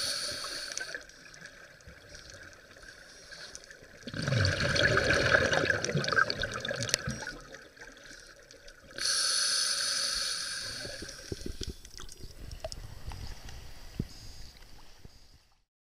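Scuba diver breathing through a regulator, heard underwater: a hissing inhale, a burst of bubbling exhaled air about four seconds in, and another hissing inhale about nine seconds in. Faint bubbling crackles trail off near the end.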